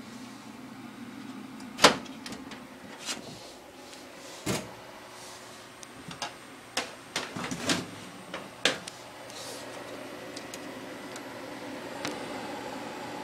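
Sheet-metal desktop PC case being handled, giving a series of sharp clicks and knocks, the loudest about two seconds in, over a steady low hum.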